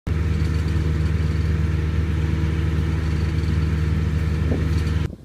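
Combine harvester running steadily in the rice field, an even engine note with mechanical noise over it, cut off abruptly near the end.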